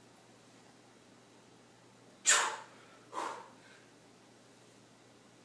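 A person breathing hard while doing Hindu push-ups: a sharp, loud exhale about two seconds in, then a softer breath about a second later.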